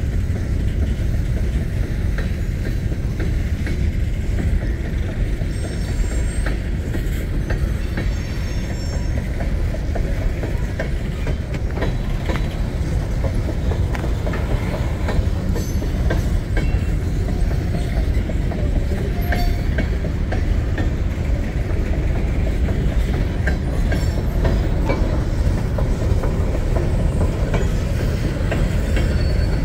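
Empty coal train rolling by: a steady rumble of empty coal cars with rattling clicks and clanks from wheels over rail joints, and a brief high wheel squeal about six to nine seconds in.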